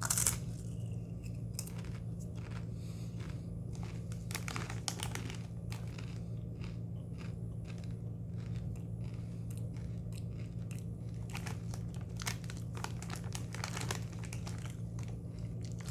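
Doritos Guacamole tortilla chips being chewed, with a string of short, crisp crunches and some crinkling of the chip bag, over a steady low hum.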